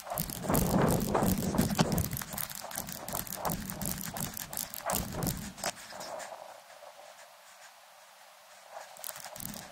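Irregular knocks, crunches and clicks of handling and movement, dying away about six seconds in.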